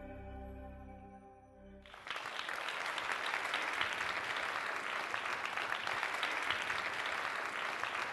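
Soft intro music of sustained tones fading out, then about two seconds in an abrupt cut to audience applause that continues steadily.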